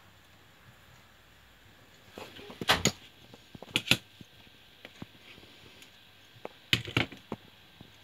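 Hands working with small tools on a wooden workbench: three pairs of sharp clicks and knocks, a little under 3 s in, about 4 s in, and about 7 s in, with a few fainter ticks between.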